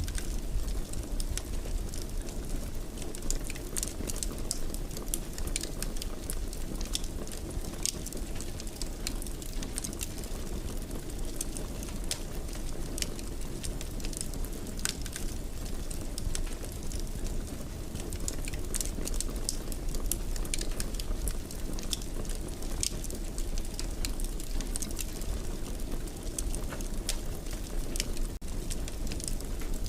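Wood fire in a fireplace crackling: a steady low rumble with frequent small crackles and pops.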